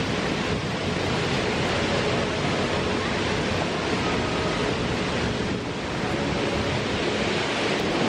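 Steady rush of a waterfall and the fast stream below it, an even unbroken roar of falling water.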